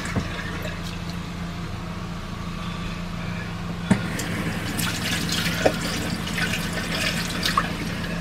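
Water from a faucet running in a steady stream into a small stainless steel sink bowl and down the drain. There are a few short clicks, and a steady low hum underneath.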